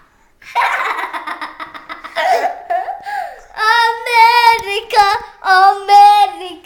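A child giggling for a second or two, then a young girl singing wordless, wavering notes, breaking into short sung notes near the end.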